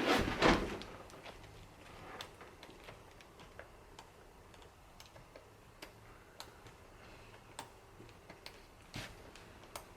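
Small saddle hardware being handled while a spring-loaded clamp is lined up: a brief louder rustle and knock at the start, then scattered faint clicks and taps.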